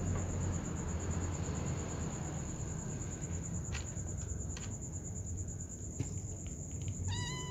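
Kittens eating dry kibble from a tray, with a few short crunches and clicks, over a steady low hum and a constant high-pitched pulsing trill like a cricket. A short high-pitched call sounds near the end.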